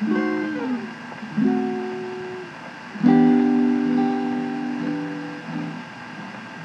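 Background music: plucked-string chords, each struck and left to ring out and fade, a new one about every second and a half.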